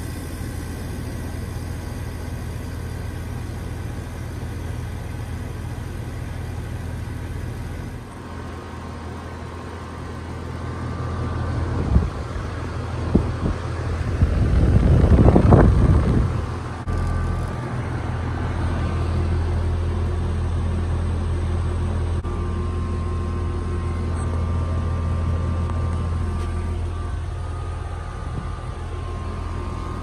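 Goodman 14 SEER central air-conditioner condensing unit running with a steady low hum. About halfway through, a loud rush of air swells up and dies away over a few seconds as the fan's discharge blows across the microphone, with a few sharp knocks just before it.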